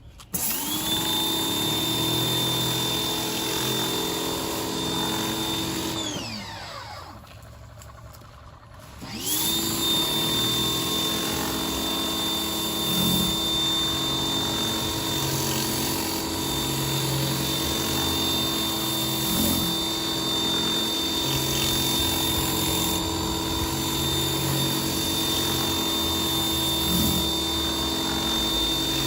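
Pressure washer running with a steady whine, feeding a Westinghouse 15-inch rotary surface cleaner. About six seconds in, the motor winds down and stops. About three seconds later it spins back up and runs steadily again.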